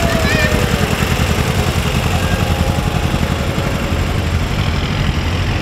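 Old Fiat tractor's engine running with a steady, rapid chug as it passes close by at low speed, towing a wagon.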